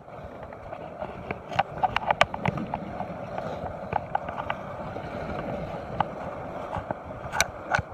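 Footsteps, scrapes and sharp knocks as someone clambers down a steep rock face, over a steady wash of sea waves.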